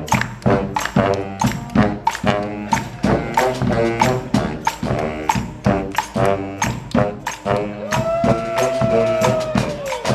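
A brass-and-drum street band playing: horns in harmony over a steady, busy drum beat, with one long held horn note near the end that slides down in pitch.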